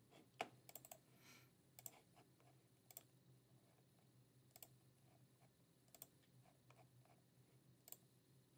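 Faint computer mouse clicks, about seven single clicks spaced a second or so apart, over quiet room tone.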